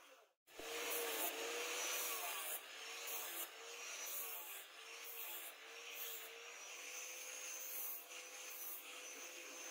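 Wooden knife-handle scales rubbing against a steel blank while a felt-tip marker scratches on them, over a steady hiss.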